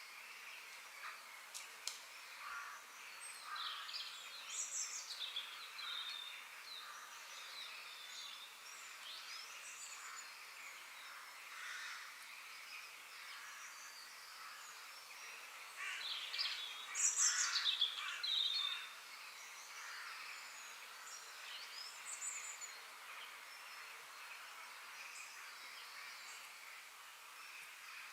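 Forest ambience of several birds chirping and calling over a faint steady hiss, with a louder flurry of quick falling calls a little past the middle.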